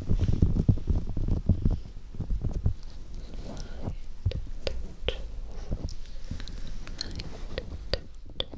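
Fingertips tapping on the fluffy fur cover of a homemade binaural microphone. For about the first two seconds there are dense, muffled thumps and rustling, then sparser light taps and clicks.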